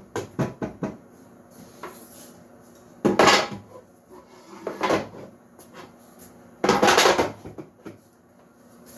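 Workshop handling noise: a sharp knock, a quick run of clacks, then three short scraping or sliding rushes, about two seconds apart, as wooden parts and hardware are moved about on a router table.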